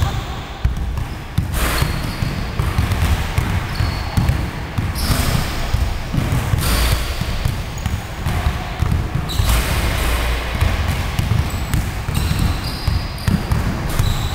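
Basketballs bouncing on a wooden gym floor during a dribbling drill, a quick run of repeated thuds.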